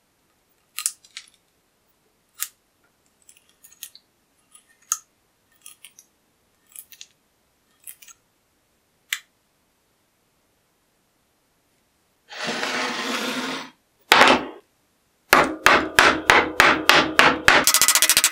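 Sparse light clicks as the rust-crusted cleaver is handled, then a short rough scrape. Then a hammer strikes the rusty cleaver blade on a wooden workbench to break off the rust scale, about three blows a second, quickening into a fast rattle of blows near the end.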